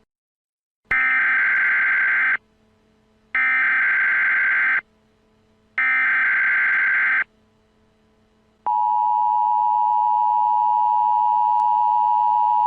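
Emergency Alert System tones: three loud bursts of SAME header data tones, a screeching digital warble each lasting about a second and a half with short gaps between, then about nine seconds in the steady two-tone EAS attention signal starts and holds.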